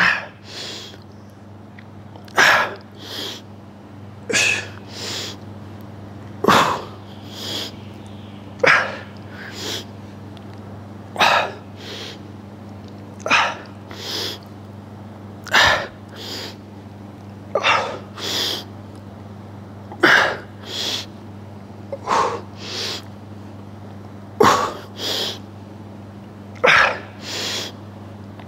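A man's sharp, forceful breaths through the mouth in time with alternating dumbbell curls, about one every two seconds, each followed by a softer breath. A steady low hum runs underneath.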